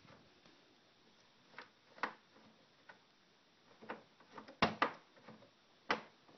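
Scattered sharp clicks and taps, about six in all with the loudest a little past halfway, from a screwdriver working the screws out of the plastic back panel of an HP all-in-one PC.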